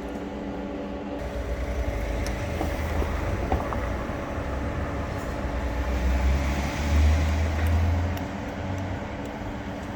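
A motor vehicle passing by, its low rumble building from about two seconds in, loudest around seven seconds, then fading, over a steady low hum.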